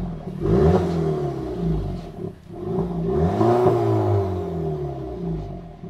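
Volkswagen Tiguan 2.0-litre turbo engine revved twice through its modified exhaust, which has the resonator removed; the pitch rises and falls with each rev.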